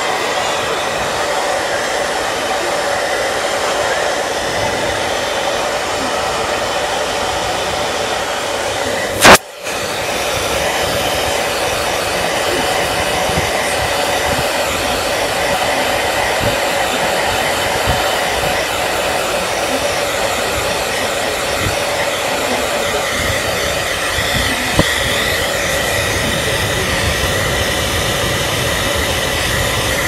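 Steady rushing noise with a few faint steady hums in it, broken once about nine seconds in by a sharp click and a brief drop-out.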